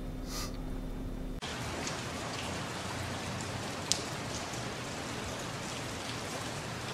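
A low steady vehicle hum at first. About a second and a half in it cuts to a steady hiss of falling water with scattered light ticks and one sharper click about four seconds in.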